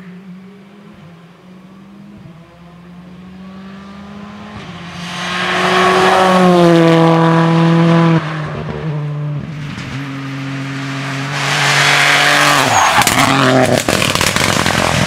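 Rally car engine at full throttle, growing louder and rising in pitch as it comes past, then dropping in pitch. A second rally car follows, loud on the throttle; its engine note falls as it lifts off and the exhaust crackles and pops rapidly.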